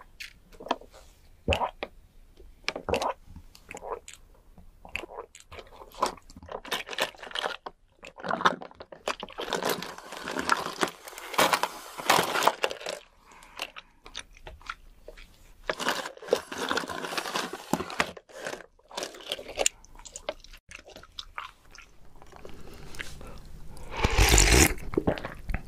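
Close-miked bubble tea drinking: tapioca pearls being chewed in quick wet clicks, with long sucking slurps through a wide straw about a third of the way in and again past the middle. Near the end there is a single loud slurp from a spoon.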